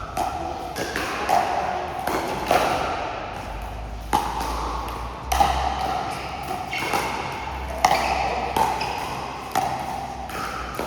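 Pickleball paddles striking a plastic ball in a rally: a string of sharp pocks, roughly one a second, each with a short hollow ring.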